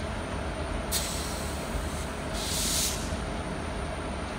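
Steady rumble of trains on the line, with two sharp hisses of compressed air: one starting about a second in and lasting about a second, and a shorter one just before three seconds, typical of train air brakes venting.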